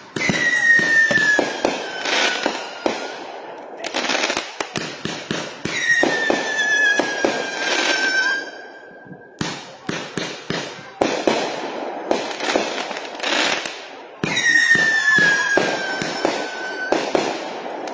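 Consumer-grade aerial repeater fireworks firing a rapid string of shots and bursting pops, with three whistles that fall slowly in pitch, each lasting two to three seconds.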